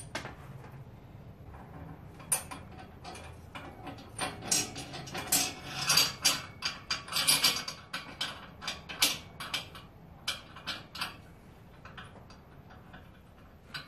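Steel receiver-hitch bolts and mounting hardware clinking and clicking against the frame as they are handled and threaded back in by hand. The clicks are irregular, come thickest in the middle and thin out near the end.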